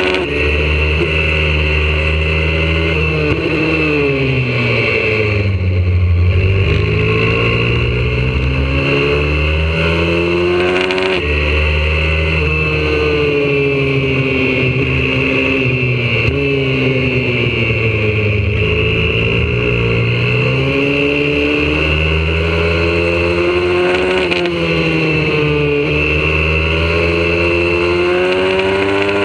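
Onboard sound of a YCF 125cc four-stroke single-cylinder pit bike engine at racing pace. The revs repeatedly fall away over a few seconds as it slows for corners and climb again under acceleration, with quick dips at gear changes about 11 and 24 seconds in.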